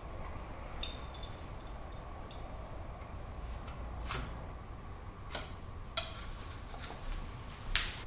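Small steel machine parts being handled: a dial indicator and its holder being taken off a milling machine and a rotary table picked up. About eight scattered metallic clicks and light knocks, a few ringing briefly, the loudest near the end.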